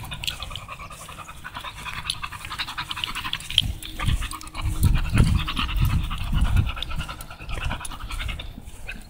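American bully dog panting rapidly. Low rumbling thumps come in about four seconds in and are loudest for the next three seconds.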